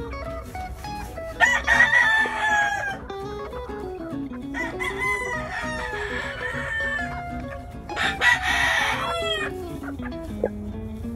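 Kelso gamecock crowing three times, each crow long and falling in pitch at the end, with guitar music playing underneath.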